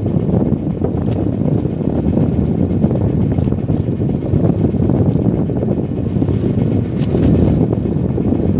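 Strong wind buffeting the microphone, a loud, continuous low rumble that surges and eases.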